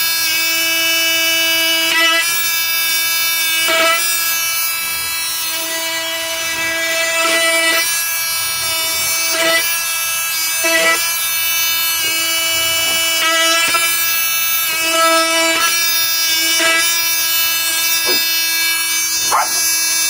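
FLEX FX4111 cordless oscillating multi-tool running steadily with a high, even buzz while its blade cuts through chunks of raw meat, with brief knocks every few seconds.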